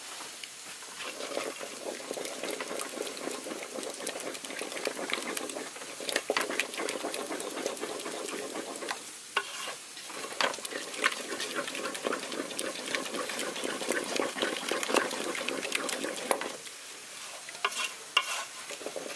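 A wooden spoon stirring a thick peanut-paste vegetable sauce in an aluminium saucepan, with steady scraping and many small clicks of the spoon against the pot, pausing briefly twice.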